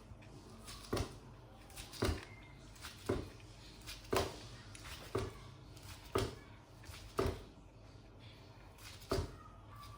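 Knife slicing a futomaki sushi roll into pieces, with a soft knock on the cutting board about once a second.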